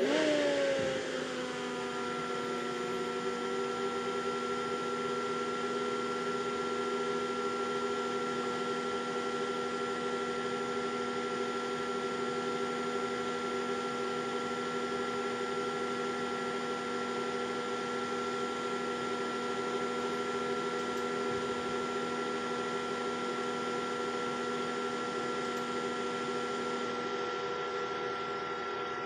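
Cooling fans of an Antminer S9 bitcoin miner test setup starting up at power-on: a sudden start whose whine drops in pitch over the first two seconds, then a steady whirring drone with a hum.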